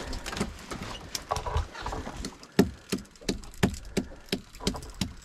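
A string of sharp clicks and knocks, about three a second in the second half, over a low steady rumble.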